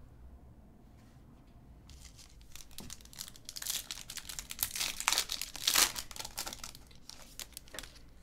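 Foil wrapper of a trading-card pack torn open by hand, crinkling and tearing from about two seconds in and loudest in the middle, with a few fainter crackles near the end.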